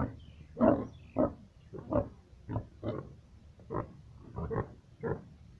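Pigs, Yorkshire breed, grunting in a pen: a quick run of short, separate grunts, about two a second, the loudest just under a second in.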